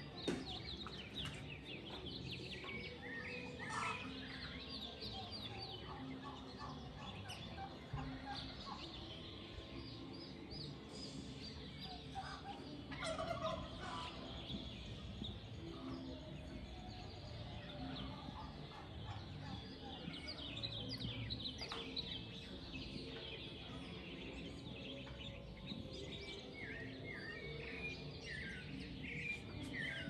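Birds calling and chirping over a steady background hum, many short high notes and quick falling notes from several birds. A louder, lower call stands out near the middle.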